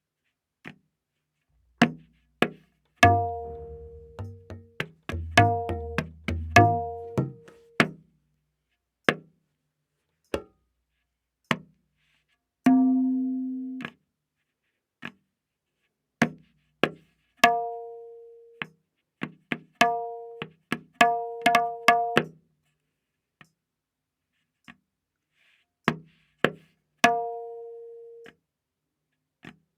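Tabla playing a slow vilambit ektaal theka: sparse single strokes, many on the right-hand drum ringing at its A# tuning, with low booming bass-drum strokes in places.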